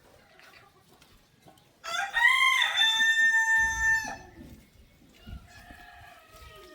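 A rooster crows once, about two seconds in, with a rising start and a long held note that ends with a drop.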